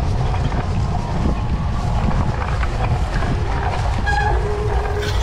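Wind buffeting the microphone of a rider-mounted camera on a cyclocross bike ploughing through deep sand, a constant low rumble with scattered knocks from the bike and tyres. A brief high-pitched tone sounds near the end.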